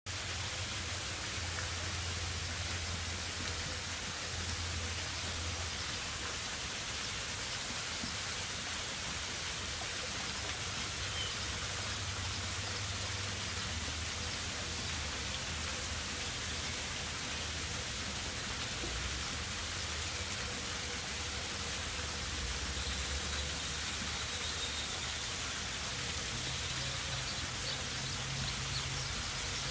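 Steady, even outdoor background hiss with a low rumble that comes and goes, and no distinct events.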